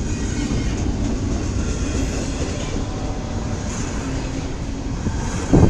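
CSX double-stack intermodal freight cars rolling past: steady rumble of steel wheels on rail, with a brief louder bump near the end.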